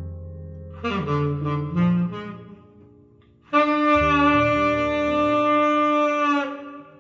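Jazz ballad played through Rogers LS3/5A bookshelf loudspeakers: a saxophone plays a short phrase over low bass notes, then holds one long note from about halfway through.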